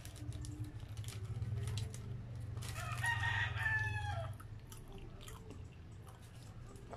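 A rooster crows once, starting a little under three seconds in: a call of about a second and a half that drops in pitch at the end. Close-up wet chewing and small mouth clicks run through it, over a steady low hum.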